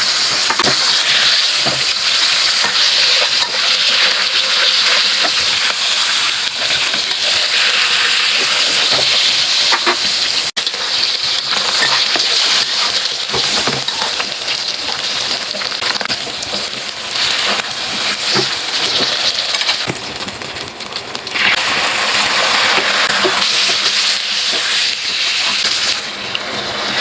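Food frying in hot oil in a pan, sizzling steadily with small clicks from stirring; the sizzle eases for a moment about two-thirds of the way through and drops near the end.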